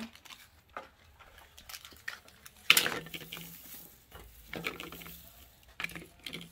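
Hollow plastic Easter eggs and plastic buckets clacking and knocking on a glass tabletop, with shredded paper Easter grass rustling as hands rummage through them. Scattered clicks, with one louder knock about three seconds in.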